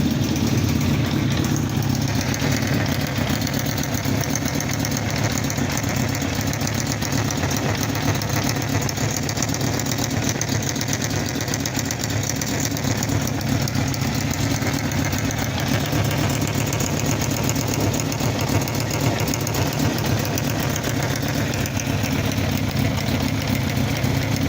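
Honda CB750F's air-cooled inline-four idling steadily, with a clicking tick from the cylinder head that the owner takes for an abnormal engine noise.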